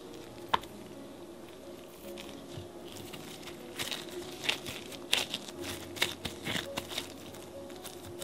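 Gloved hands rolling a lump of thick chocolate cookie dough into a ball and setting it down, the disposable gloves crinkling and rustling with irregular soft clicks and pats, heaviest in the second half. One sharp click about half a second in.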